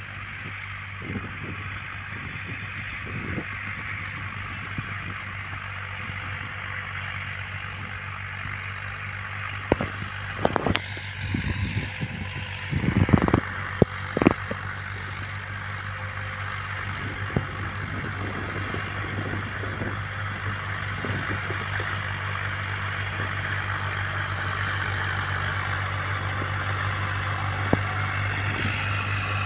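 Farm tractor diesel engine running steadily under load while pulling a tillage implement through the field, growing slowly louder as it comes closer. A cluster of knocks and rustles comes about a third of the way in.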